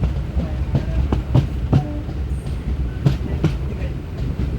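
Slow passenger train running on the rails: a steady low rumble with irregular clacks of the wheels over rail joints.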